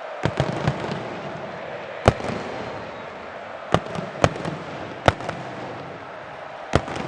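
Fireworks going off in a string of sharp bangs at irregular intervals: a quick cluster of three at the start, then single bangs about a second or so apart, over steady crowd noise.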